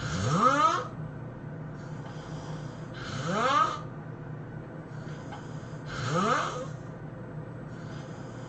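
A person snoring: three loud snores about three seconds apart, each rising in pitch, with a faint hiss of breath before each.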